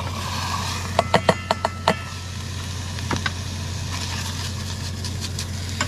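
Gas camp stove burner hissing, with a quick run of sharp metallic clicks about a second in and one more near three seconds, over a steady low hum.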